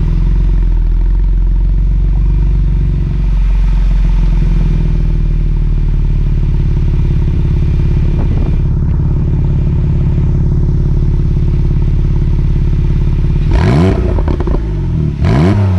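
Porsche 911 (991.2) Carrera 4S twin-turbo 3.0-litre flat-six running steadily at idle through its sport exhaust, then blipped twice near the end, each rev rising sharply and dropping straight back.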